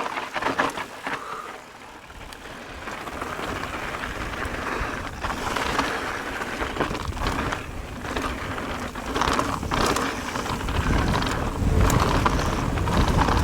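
Ibis Ripmo mountain bike rolling fast over a dirt and rock trail: tyre noise with frequent knocks and rattles from the bike. Wind rumbles on the microphone, heavier over the last few seconds.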